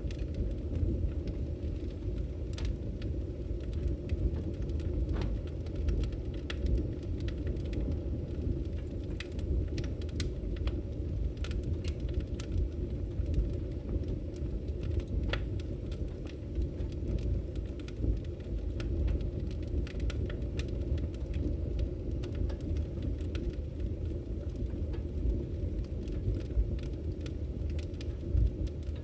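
Wood fire burning in a fireplace: a steady low rumble of the flames with frequent small crackles and pops at irregular moments.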